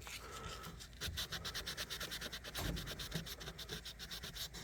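Fine abrasive rubbed by hand in quick back-and-forth strokes along the tops of a pocket knife's steel blades, a faint scratching that picks up about a second in.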